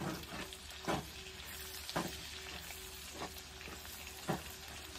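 Pork and onions frying and sizzling in a large metal wok, with a wooden spatula scraping and stirring about once a second.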